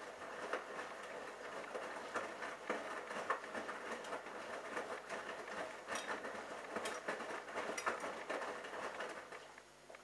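Bosch Logixx washing machine drum turning the wet laundry through the final rinse water: sloshing and splashing with scattered knocks, stopping abruptly near the end as the rinse finishes.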